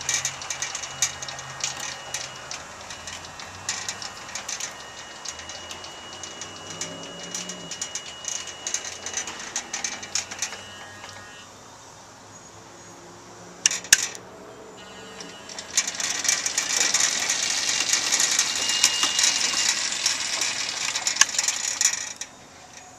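Home-built 12-volt power feed of a bandsaw mill running: a DC gear motor driving the carriage through #40 roller chain and idler sprockets, with a high steady whine and a constant clicking rattle of chain over sprockets. It drops quieter a little before halfway, a sharp click comes soon after, and then it runs louder again until stopping shortly before the end.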